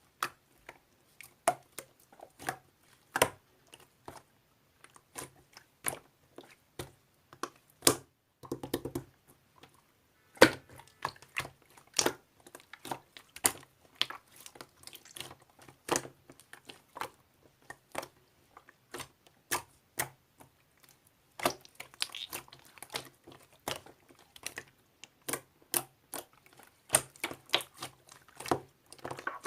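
Clear slime mixed with heart glitter being squeezed and pressed by hand, making irregular sticky clicks and pops, a few a second, with a short denser squelch about nine seconds in.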